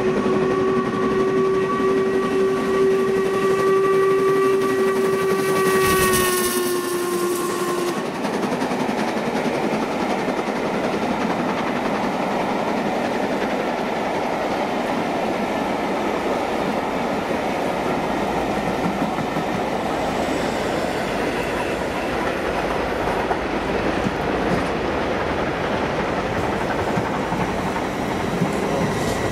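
Steam locomotive whistle held for about eight seconds as the engine passes, dipping in pitch at the end. Then the coaches clatter and rumble past on the rails.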